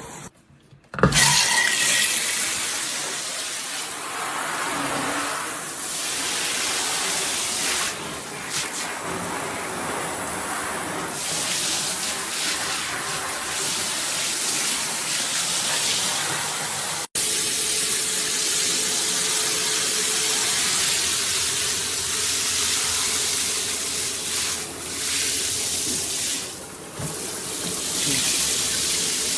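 Water running steadily through a tub-spout pet-shower hose attachment and spraying, starting about a second in.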